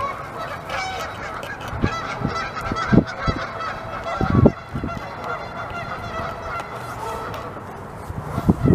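Geese honking over and over throughout, with a few loud low knocks about three and four and a half seconds in and again near the end.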